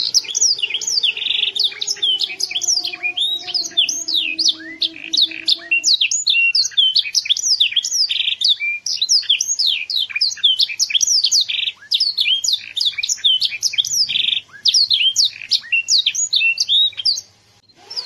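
Young domestic canary singing loudly: a long, fast run of quick sweeping chirps and trills, with short pauses between phrases, that stops shortly before the end.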